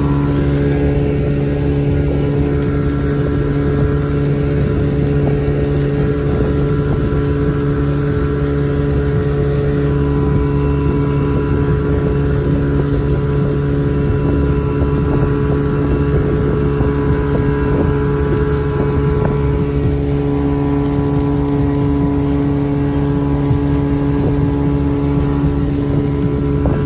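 Motorboat engine running steadily at speed, with wind rushing over the microphone.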